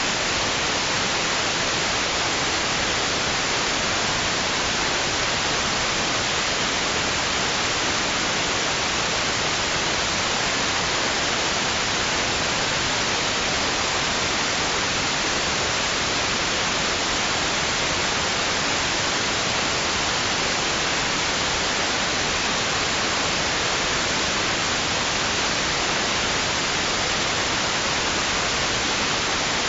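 Steady white noise: an even, unchanging hiss with no swells or breaks.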